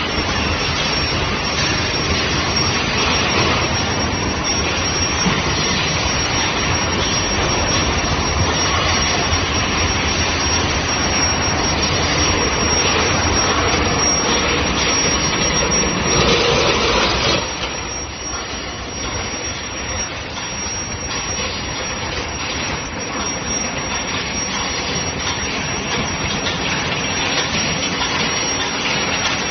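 Steady, dense machinery noise of a steel ball hot rolling production line, with a thin high-pitched whine over it. About sixteen seconds in the noise swells for a moment, then settles slightly quieter.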